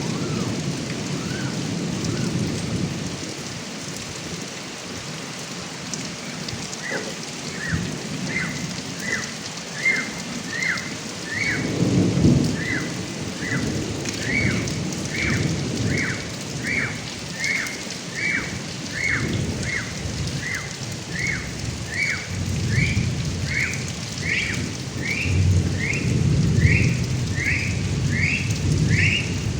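Heavy rain pouring off a roof gutter spout, with low thunder rumbling about twelve seconds in and again near the end. From about seven seconds in, an animal repeats a short falling chirp, a little over one a second.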